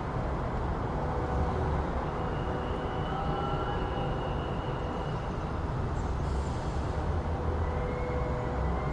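City street ambience dominated by the steady low rumble of passing traffic, with a faint high squeal held for a few seconds in the middle and another starting near the end.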